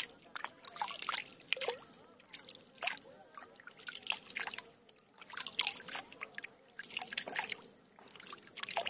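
Water trickling and dripping in irregular small splashes.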